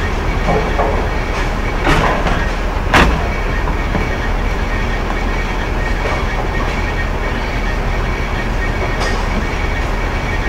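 Bowling alley noise: a steady rumble of bowling balls rolling down the wooden lanes, with two sharp crashes of pins being struck about two and three seconds in.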